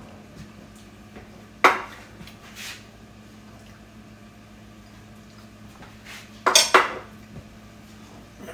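Kitchenware being handled: a sharp knock about two seconds in, a lighter one a second later, and a quick cluster of clinks and clatters near the end, over a faint steady hum.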